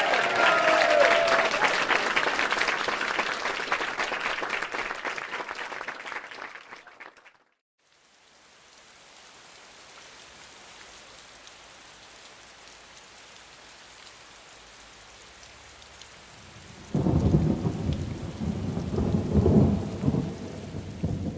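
Thunderstorm sound effect: a loud, dense rushing noise with a few brief gliding tones at the start that cuts off about seven seconds in, then steady light rain, then a low rumble of thunder starting abruptly about seventeen seconds in and fading near the end.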